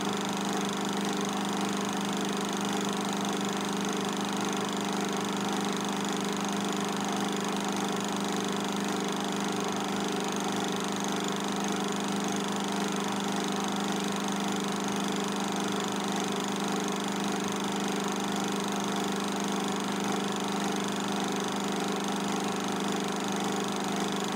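Old film projector running: a steady mechanical hum with a strong low tone under a hiss.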